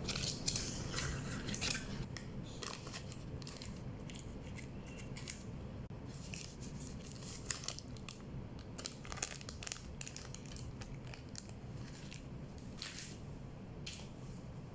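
Paper wrapper of a block of butter crinkling and rustling as it is peeled open, in short scattered crackles over a faint steady low hum.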